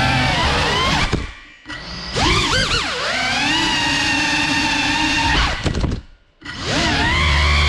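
GEPRC Cinelog35 FPV cinewhoop's brushless motors and ducted propellers whining, the pitch rising and falling with the throttle. The whine drops out briefly about a second in and again near the end as the throttle is cut.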